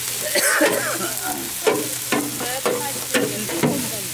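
A long metal spatula scraping and stirring spice paste frying in oil in a large stainless steel pan, with a scraping stroke about every half second over a steady sizzle.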